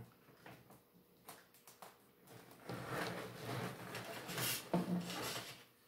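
Handling noise from a lathe DRO kit: scattered light clicks at first, then about three seconds of denser rustling and knocking as the readout display unit and its scale cables are moved about on cardboard.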